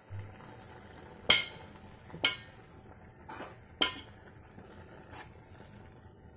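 A metal spoon stirring grated carrots in milk in an aluminium pot. It knocks sharply against the pot three times, with softer scrapes and clinks between, over a faint steady hiss.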